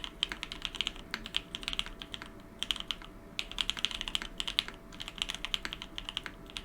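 Typing on a TGR910 v2 ME mechanical keyboard with lubed Alpaca linear switches and GMK doubleshot ABS keycaps: quick runs of key clacks in bursts, with a short pause about three seconds in.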